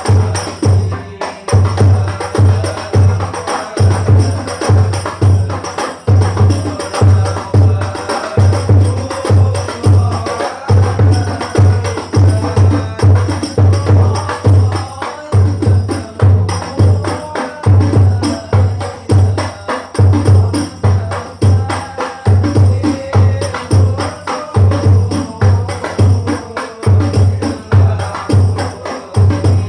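Hadroh (banjari) ensemble of rebana frame drums playing a steady rhythm: deep bass-drum strokes repeat evenly under quick, sharp hand strikes on the drumheads.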